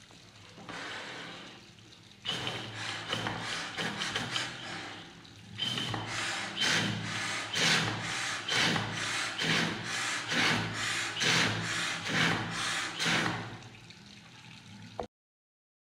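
Tap water running into a ceramic washbasin, with an even series of strokes from a plastic Holi pichkari water gun worked at the stream, about two a second, from about six seconds in. It all cuts off suddenly shortly before the end.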